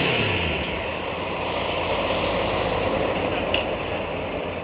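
An engine running steadily with a low hum, and a brief sharp click about three and a half seconds in.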